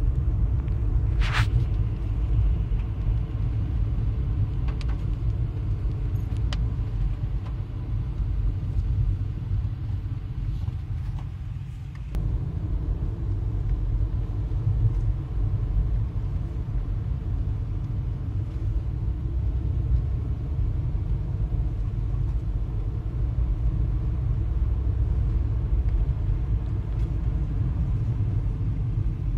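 Steady low road and engine rumble heard inside the cabin of a moving car, with a brief higher-pitched sound about a second and a half in and a few faint ticks.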